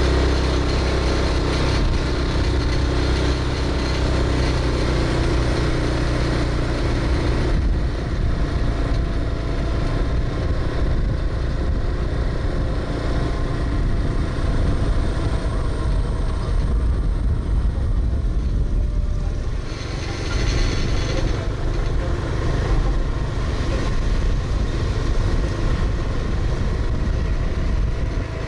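A vehicle engine running steadily while driving along, its note changing about seven seconds in.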